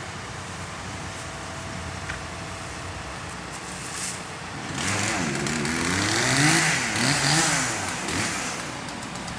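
A motor vehicle's engine revs up and down several times for a few seconds about halfway through, together with a rush of noise, over a steady background hiss.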